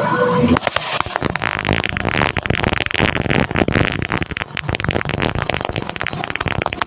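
Electric arc welding, a dense, irregular crackling that starts about half a second in and stops near the end.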